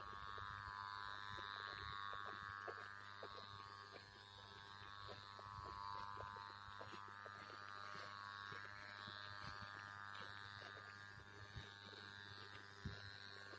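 Faint steady buzzing hum with a wavering higher whine above it and soft irregular ticks.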